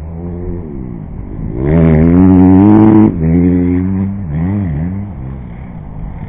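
Dirt bike engine idling with throttle blips; about two seconds in it revs up loud with rising pitch, then drops back suddenly about a second later.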